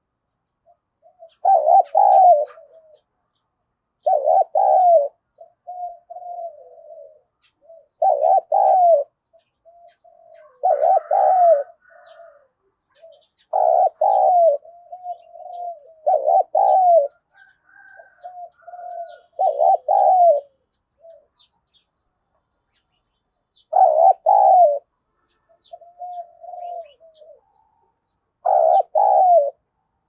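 Spotted dove cooing over and over: loud coo phrases every few seconds with softer, lower coos between. This is the challenge cooing of a decoy male, used to provoke wild doves.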